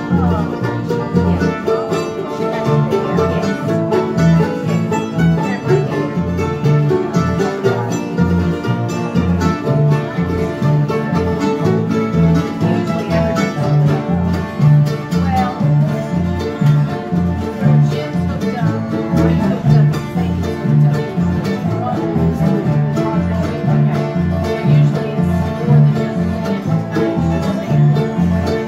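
Live acoustic bluegrass jam: several acoustic guitars and other plucked string instruments playing together over a steady, even rhythm.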